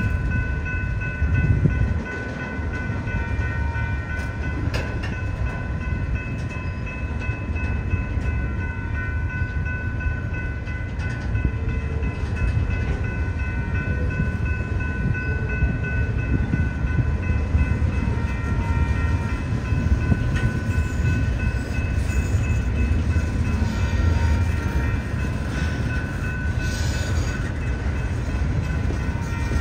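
Long double-stack freight train rolling past: a steady loud rumble of the cars on the rails, with several high, steady tones held over it throughout.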